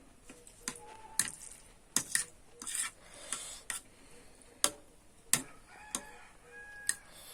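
Cutlery clinking and scraping against a bowl or plate while eating noodles, in sharp separate clicks about a second apart.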